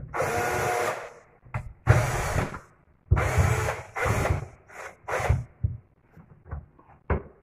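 Cordless drill-driver driving a screw into a kitchen cabinet's side panel. The motor runs in about five short bursts of half a second to a second, stopping and starting between them, then a few quieter clicks near the end.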